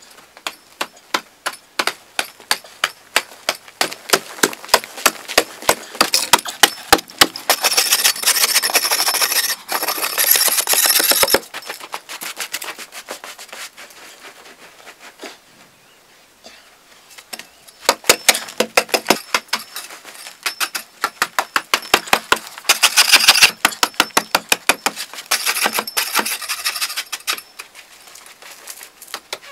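Short-handled hoe chopping into dry, packed earth in fast repeated strokes, about four a second, with loose soil scraping between strokes. The strokes fade to faint clicks for a few seconds in the middle, then pick up again.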